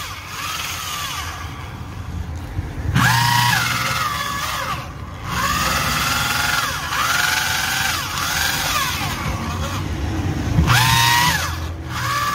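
Electric drill with a propeller paddle mixing thick fish-bread (bungeoppang) batter, its motor whine rising and falling in repeated spurts of about a second. The batter is still short of water, so the paddle is running under a heavy load.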